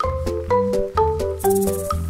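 Background music: a quick tune of short notes changing about every quarter to half second over a steady bass line.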